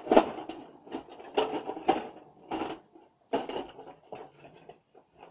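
Objects clattering and knocking as they are rummaged through and handled, with about half a dozen irregular knocks.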